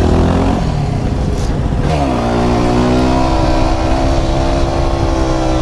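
Motorcycle engine running hard under throttle. Its pitch drops sharply about two seconds in, then holds and climbs slowly.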